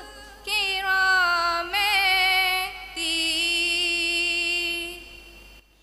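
A group of women singing a madhaha, an Islamic devotional song, together with no instruments heard. There are three short phrases with a wavering pitch, and the last is a long held note that fades out and ends shortly before the close.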